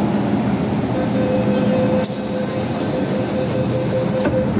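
Metro train running sounds from aboard an MTR M-Train at an underground platform: a steady rumble, with a held tone starting about a second in and a high hiss about two seconds in, both cutting off shortly before the end.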